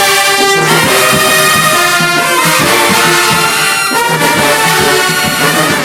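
College marching band's brass section playing loud, held chords in phrases, with brief breaks between them.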